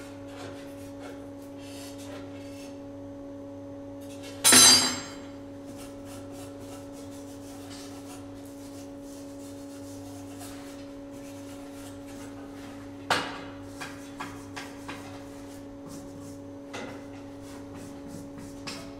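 Hot steel bar being bent into a scroll with a bending tool on a steel worktable: one loud ringing metal clank about four and a half seconds in, a second sharp clank around thirteen seconds, then a few lighter taps and scrapes. A steady mechanical hum runs underneath.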